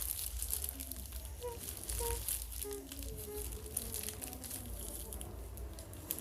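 Crinkling and small clicks of a plastic container being handled and fiddled with while someone tries to open it, over a low hum.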